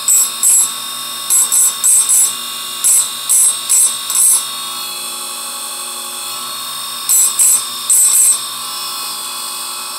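Electric saw-chain sharpener's motor running steadily while its grinding wheel is dabbed onto a chain cutter in short touches of grinding: about ten quick touches in the first four seconds, then four more about seven seconds in.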